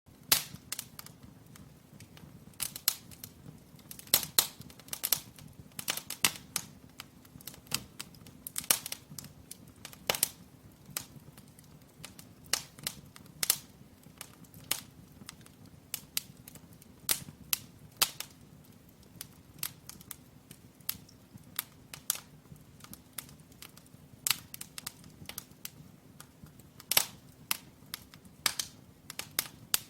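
Firewood burning in an open brick fireplace, crackling and popping with sharp, irregular snaps, a few a second, some much louder than others, over a faint low rumble.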